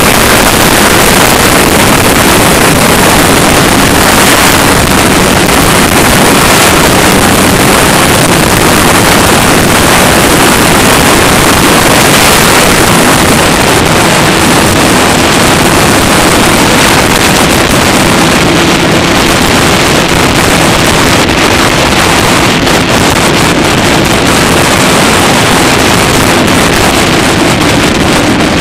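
Motorboat running at speed, its engine a steady drone under heavy wind buffeting on the microphone and rushing water, loud and unbroken throughout.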